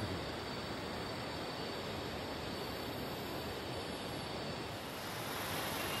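Steady, even hiss of rainforest ambience, with a faint high insect tone held through most of it; the hiss brightens in its highest part about five seconds in.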